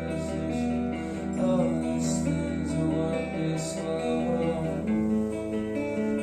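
Music with plucked and strummed acoustic guitar, played at a steady level.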